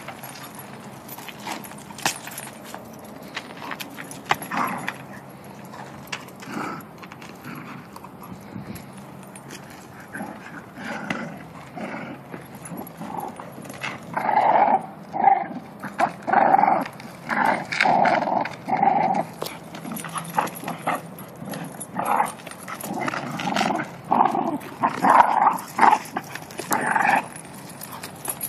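Dogs at play: scattered clicks and knocks at first, then from about halfway a run of short, loud barks in quick succession that stops shortly before the end.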